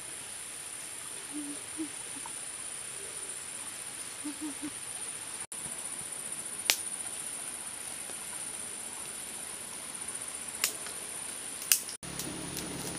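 Tropical forest ambience: a steady high-pitched insect drone over an even hiss, with a few short low calls in twos and threes and several sharp clicks.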